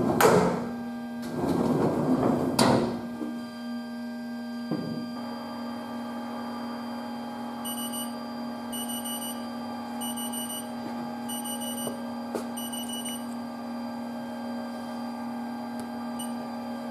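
Steady electrical hum of a Haas TL-2 CNC lathe standing idle. It has a constant low tone and several fainter tones, and brightens about five seconds in. Loud clattering handling noises come in the first few seconds, and five groups of short, high electronic beeps sound in the middle.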